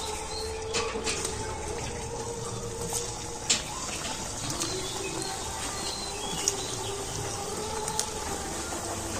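Semolina kalojam sweets frying in hot oil in an aluminium karai: a steady sizzle and bubbling. A few sharp clicks and splashes come as more pieces are dropped in, the loudest about three and a half seconds in.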